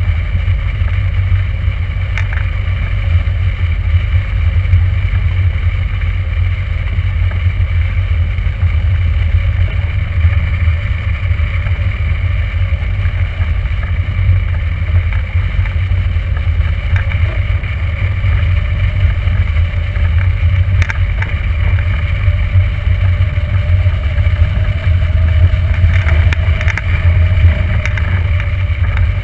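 Airflow rushing over a hang glider's wing-mounted camera in flight, heard as a steady, loud low rumble of wind noise. A faint whistle rises slightly in pitch near the end.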